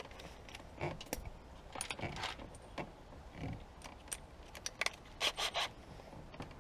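Irregular small clicks and rattles of plastic trim parts and connectors being handled and unclipped on the driver's door window switch panel of a 2007 Saab 9-3, with a quick run of three louder clicks about five seconds in.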